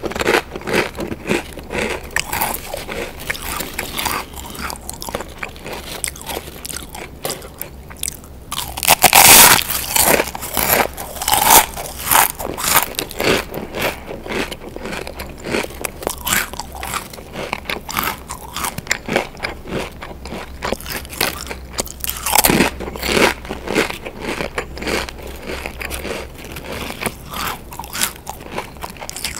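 Pringles potato crisps being bitten and chewed: a run of sharp, rapid crunches throughout, with the loudest bites about nine seconds in and again about twenty-two seconds in.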